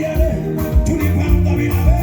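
Upbeat African pop music with a steady beat about twice a second and a singing voice.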